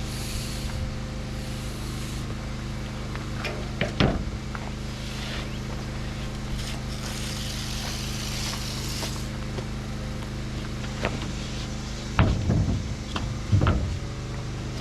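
An engine running steadily with an even hum, with a few sharp knocks and clatters about four seconds in and twice near the end.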